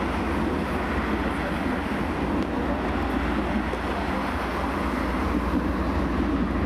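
Steady rumble of road traffic mixed with an articulated electric tram running along its street tracks.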